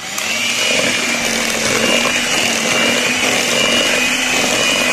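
Electric hand mixer running steadily at speed, its beaters churning an egg into thick cake batter, with a steady high-pitched motor whine.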